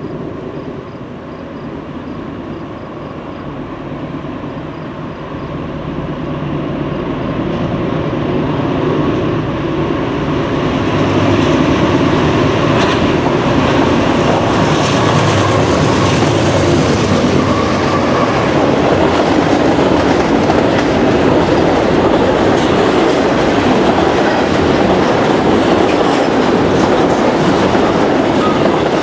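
Double-stack intermodal freight train approaching and passing. The GE diesel locomotives' engines grow steadily louder over the first ten seconds or so. Then the container well cars roll by with a continuous clatter of wheels over the rails.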